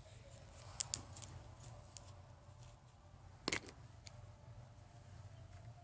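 Quiet room with a steady low hum and a few faint clicks, the loudest a sharp double click about three and a half seconds in.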